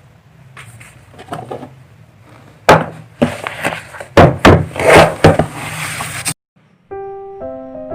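A run of loud, sharp knocks and clattering, as of hard objects handled and struck, that stops abruptly; soft piano music begins near the end.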